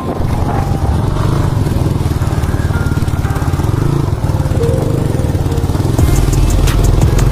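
Motorcycle engine running under way on a dirt road, a steady pulsing rumble that grows louder about six seconds in.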